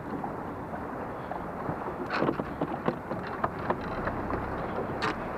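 Steady wind and water noise, with a run of sharp knocks and taps starting about two seconds in and lasting a few seconds.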